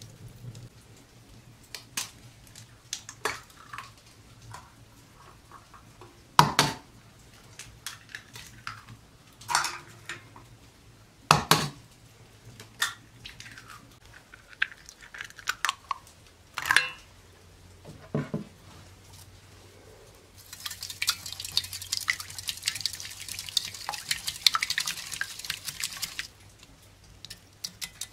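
Eggs cracked and dropped into a metal bowl: a series of separate sharp knocks and clinks. About twenty seconds in, the eggs are beaten briskly with a twig whisk, a fast, continuous scratchy swishing against the bowl that lasts about six seconds.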